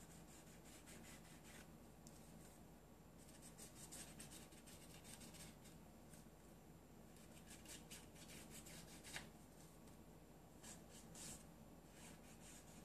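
Faint, scratchy rubbing of a black Distress marker tip along the torn edges of cardstock, inking them, in several runs of quick short strokes.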